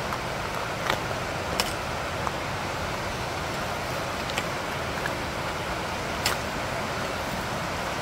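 Steady rush of a fast-flowing brook and a cascading waterfall upstream, a constant even roar of water. A few light, sharp clicks stand out from it.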